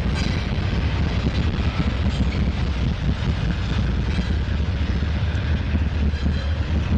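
Diesel freight locomotive engines running with a steady low drone as the train rolls slowly through the yard toward the microphone.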